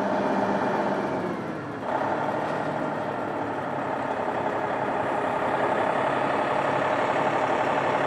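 Truck-mounted crane's engine running steadily, stepping up suddenly in level about two seconds in.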